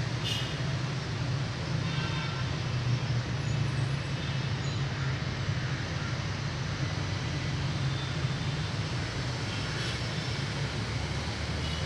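Steady low rumble of distant engines and road traffic, with no clear beginning or end.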